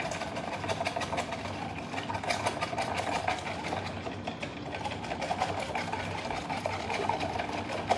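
Small whisk stirring a sauce of soy sauce, tomato paste and brown sugar in a bowl, with rapid rhythmic clicking and scraping of the tines against the bowl as the sugar is broken up and mixed in.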